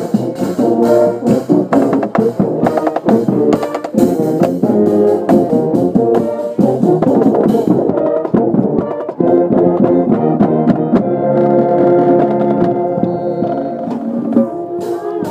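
Marching band brass playing full chords over sharp drum hits, then settling into long held chords about halfway through, with the drum hits returning near the end.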